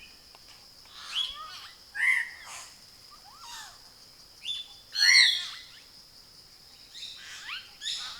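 Wild birds calling in forest, a scattering of short chirps and whistles, the loudest about five seconds in, over a steady high-pitched insect drone.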